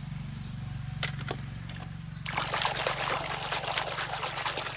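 Water trickling and spattering for about two seconds, starting a little past the two-second mark and stopping near the end, over a steady low hum. Two sharp clicks come about a second in.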